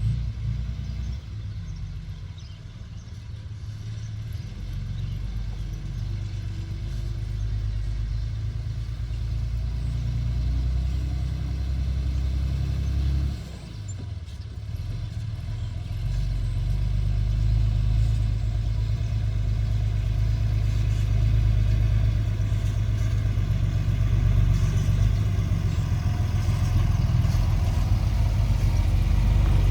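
Excavator's diesel engine running with a low, steady rumble. It grows gradually louder, drops off suddenly about halfway through, then builds back up again.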